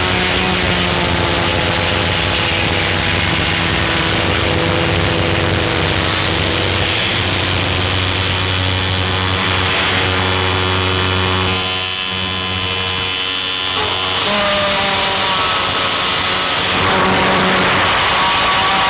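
Harsh noise music: a loud, dense wall of distorted electronic noise with several droning tones that slowly sag in pitch. About twelve seconds in the lower range briefly thins out, then fresh droning tones come back in.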